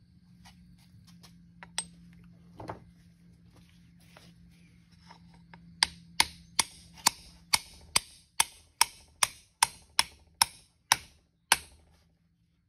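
A hammer strikes a metal driver to seat the top bearing race in the housing of a John Deere 3 cu in hydraulic pump. About fourteen sharp, evenly spaced metal strikes, a little over two a second, start about six seconds in. A couple of lighter knocks come earlier.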